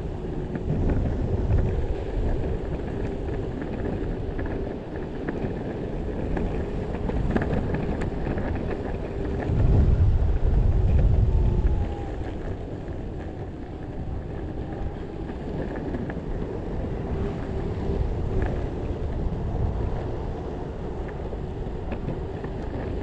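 Possway T3 electric skateboard riding along: wheels rolling with a steady rumble, a steady whine under it and wind buffeting the microphone, with a louder gust about ten seconds in.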